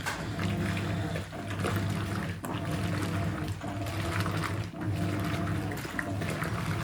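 Hoover 800RL top-loading washing machine agitating a load of washing after a soak: the motor hum and water sloshing run in quick strokes about once a second, with only a brief break between them.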